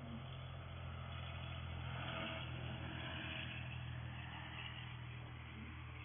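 A vehicle passing out of sight, its noise swelling over a couple of seconds and then fading, over a steady low hum picked up by a security camera's microphone.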